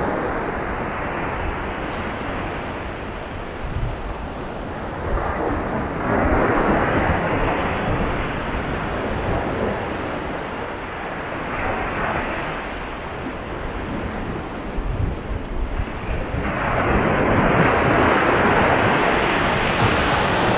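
Surf washing onto a beach, swelling louder about six seconds in and again from about sixteen seconds in, with wind buffeting the microphone.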